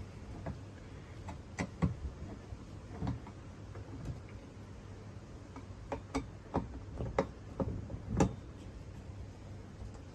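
Scattered light clicks and knocks, irregular and spaced out, from undoing the screws on a caravan roof skylight's wind-up mechanism and handling its parts.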